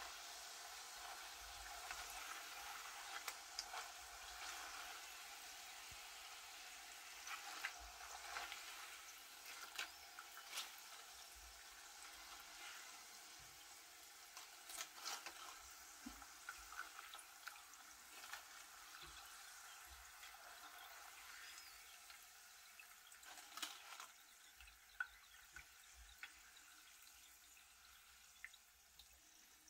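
Faint sizzle of hot oil around frying plantain slices, dying down as the slices cook through and their moisture is driven off, the sign the chips are nearly done. Occasional short clicks and scrapes of a plastic slotted spatula against the pot.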